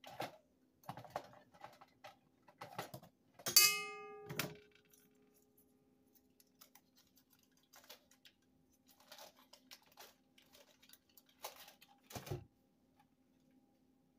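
Light clicks and knocks of hands working at a stand mixer. About three and a half seconds in comes one sharp metallic clink on the stainless steel mixing bowl, which rings on for a couple of seconds. A duller knock follows near the end.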